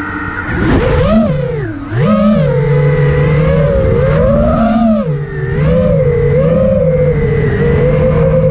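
FPV quadcopter's brushless motors and propellers, heard up close from a GoPro mounted on the craft: a whine whose pitch swoops up and down with several throttle punches as the quad lifts off, then holds a fairly steady note with small wobbles in forward flight.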